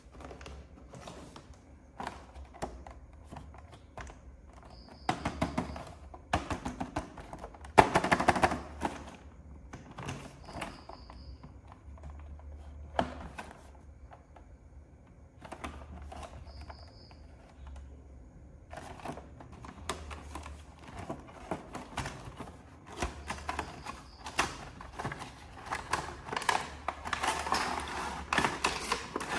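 Plastic action-figure packaging being handled and opened: irregular clicks and taps of hard plastic, with stretches of louder crinkling and rustling, the loudest near the end.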